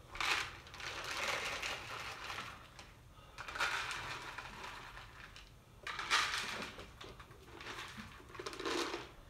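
Dry cat food kibble pouring from a plastic canister into bowls, rattling in four bursts of one to two seconds each.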